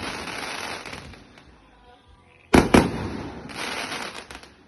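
Fireworks going off: the crackle of one burst dies away, then two sharp bangs come a quarter-second apart about halfway through, followed by about a second of crackling.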